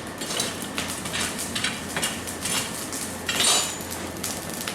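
Light, irregular metallic clinks and knocks of steel stock and blacksmithing tools being handled while a leaf spring is worked, over a steady hiss.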